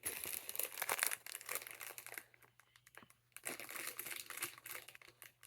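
Packaging of small toy figures crinkling and rustling as it is handled, in irregular bursts that are busiest in the first two seconds and come again more sparsely later.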